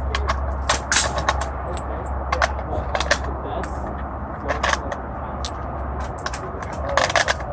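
AR-15 rifle shots at a shooting range, sharp reports at irregular spacing, with a quick string of several near the end, over a steady low rumble. The rifle is firing after a repair to its crimped gas tube, which the owner says left it jamming before; he reports it now runs flawlessly.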